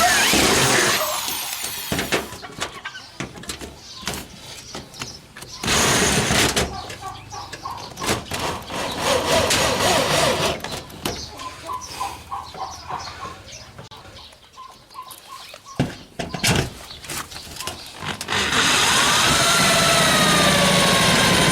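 Power drill driving screws into tin wall sheeting, in several short runs and a longer run near the end, the motor's whine sliding in pitch as it loads up.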